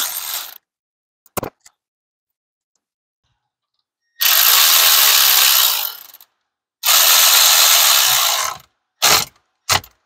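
Milwaukee cordless electric ratchet running in bursts: a short one at the start, then two runs of about two seconds each, plus two quick blips near the end. It is driving down the bolt on a ground ring terminal.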